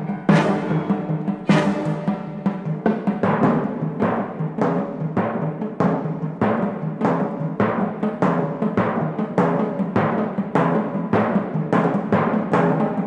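Film score music: a fast, even beat of percussive strikes over held low notes.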